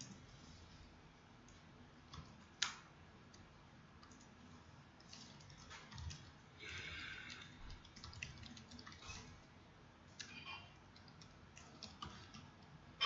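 Faint computer keyboard typing: irregular runs of keystrokes with short pauses, and one sharper keystroke about two and a half seconds in.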